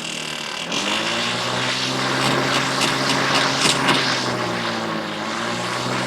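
Black & Decker MM875 electric mulching mower running, its motor hum rising as it comes up to speed within the first second and then holding steady under a loud, noisy rattle. The newly fitted fan is catching a nut on one of its blades, making a lot of noise.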